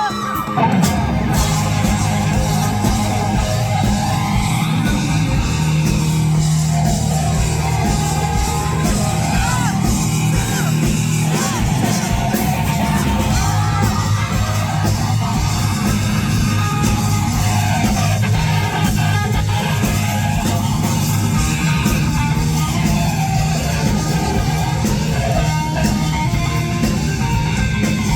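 Live rock band playing loudly and steadily, with electric guitars, bass and drums.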